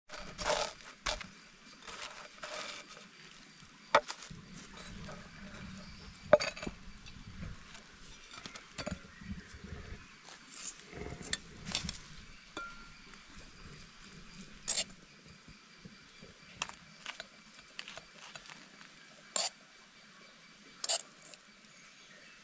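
A large knife sawing through a crusty bread loaf on a wooden board, then a fork scraping and clinking against a metal pan and plate while noodles are lifted out, with a few sharp clinks now and then.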